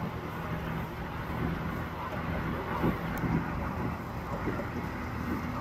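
Police helicopter flying overhead: a steady drone of rotor and engine.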